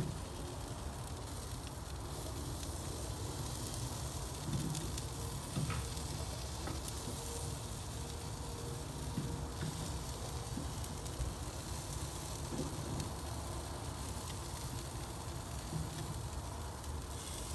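Barbecue-sauce-glazed beef and chicken wings sizzling steadily on a wood-fired grill's iron grate, with a few faint pops.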